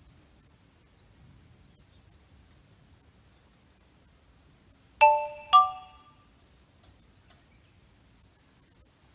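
Two light metallic clinks about half a second apart, each ringing briefly with a bright, bell-like tone; the second is pitched differently from the first. A faint steady high-pitched tone, like night insects, runs underneath.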